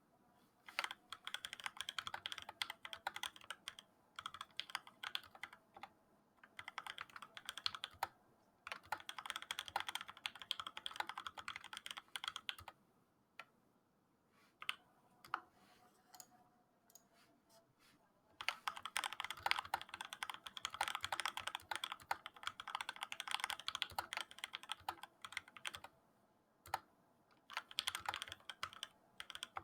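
Typing on a Keychron K6 mechanical keyboard with 62 g C³ Tangerine linear switches lubed with Krytox 205G0. Fast runs of keystrokes come in several long bursts, broken by short pauses and a few single key presses in between.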